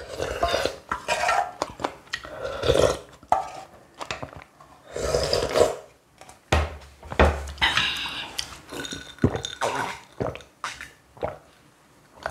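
Spoon and chopsticks clinking against a ramyeon bowl and plate in short, irregular knocks, mixed with close-up eating sounds.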